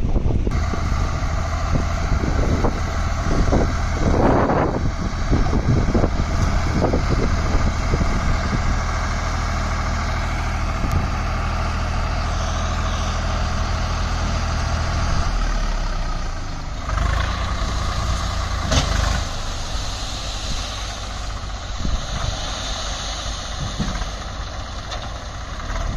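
Swaraj 744 FE tractor's diesel engine running steadily while its tipping trolley is raised to dump a load of sand. There are several knocks and clunks in the first few seconds, the engine note changes about 15 seconds in, and a single sharp knock comes a few seconds after that.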